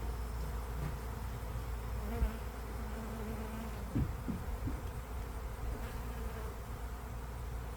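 Honeybees buzzing around an open hive, a steady wavering hum, with two brief knocks about two and four seconds in.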